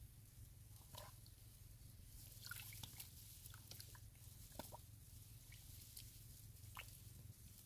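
Faint, scattered wet squelches and small clicks of a bare hand probing into soft mud in a hole, over a low steady rumble; otherwise near silence.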